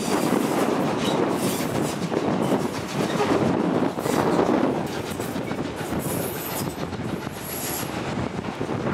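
Steam-hauled passenger train's carriage wheels running on the rails, heard from an open carriage window, louder in the first half. A few brief high wheel squeals come near the end as the train takes the curve.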